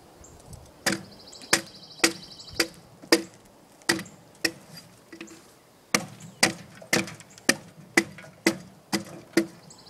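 An axe chopping the bark off an oak log: about fifteen sharp strikes at roughly two a second, with a short pause a little past midway.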